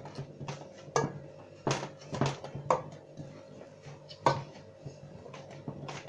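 Boiled yam being mashed in a pot with a tapali, a Ghanaian wooden pestle: irregular sharp knocks of the pestle against the pot, about five loud ones among lighter taps.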